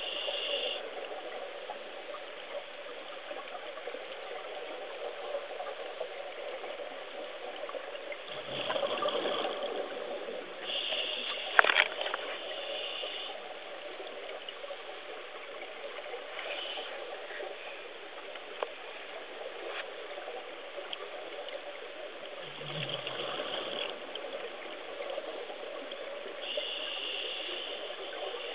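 Underwater recording: a steady hiss broken every few seconds by a short burst of bubbling from a diver's exhaled breath. There is one sharp knock about twelve seconds in.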